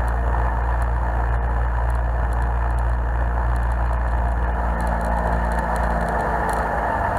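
A 21-foot HCM jet boat under way: its engine and jet drive running steadily, with water rushing along the hull. The low engine hum eases near the end.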